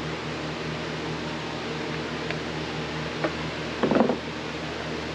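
Steady fan-like hum and hiss of a small workshop room, with a couple of faint ticks and a short clatter about four seconds in.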